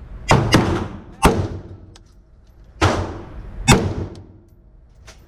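Handgun or rifle shots fired at a range target: about five shots at uneven spacing. Two come in quick succession, then three more at intervals of about a second, each followed by an echoing tail.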